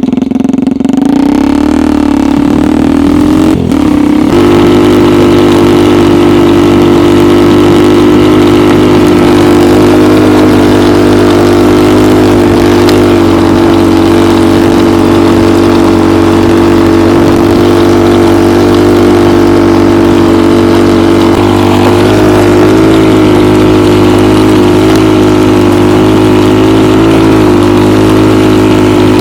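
Homemade snowmobile's engine revving up over the first few seconds, then running steadily at high revs as it drives the homemade track through deep snow; the pitch shifts a little about two-thirds of the way through.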